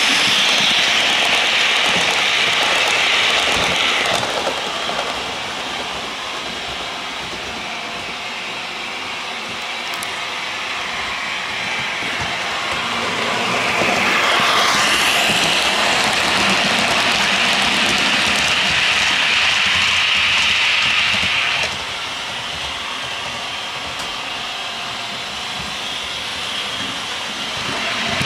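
Sound-fitted OO gauge model Class 55 Deltic locomotives running round the layout, their onboard speakers playing the Napier Deltic diesel engine sound along with the rumble of wheels on the model track. It is loud as a locomotive passes close, fades as it moves away, swells again, then drops off suddenly about three-quarters of the way through.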